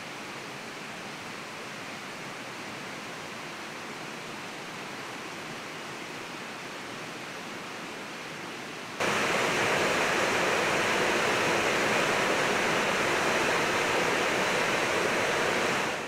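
Rocky mountain stream running over small rapids: a steady rush of water, softer at first and abruptly much louder from about nine seconds in.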